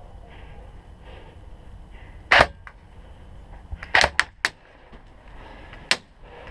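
Airsoft guns firing: sharp single pops, one about two and a half seconds in, a quick run of three or four about four seconds in, and one more near the end.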